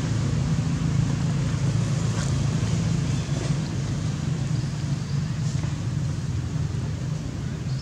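Steady low rumble of a running motor, with an even hiss above it.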